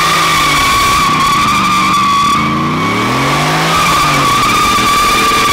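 Car doing a burnout: the tyres give a steady high screech while the engine's revs fall and rise again in the middle.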